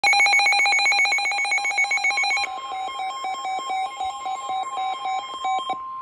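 Midland weather alert radio sounding a severe thunderstorm warning alert: rapid electronic beeping, joined about two and a half seconds in by the steady high NOAA Weather Radio warning alarm tone. The beeping stops near the end while the steady tone carries on.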